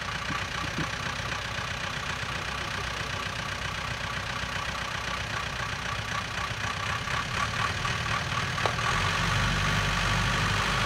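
Off-road truck engine running steadily under light load, getting louder about seven seconds in as the truck pushes forward through the mud.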